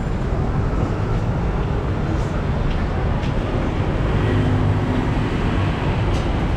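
Steady rumble of city road traffic, a constant wash of engine and tyre noise with no single vehicle standing out.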